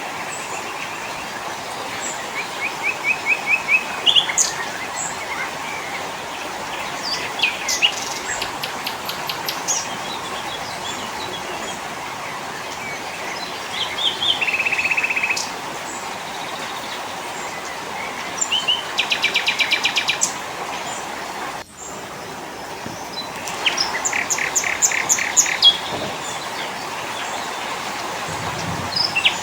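Mixed small forest songbirds calling and singing: sharp chirps and several fast trills of rapidly repeated notes, over a steady background hiss. The sound drops out briefly about two-thirds of the way in.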